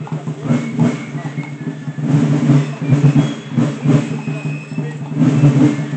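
Drums and fifes of a Walloon folk-march band playing in the street, with short high fife notes over irregular drum strokes, mixed with people's voices.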